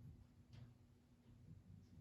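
Near silence: a faint steady low hum with a couple of soft ticks.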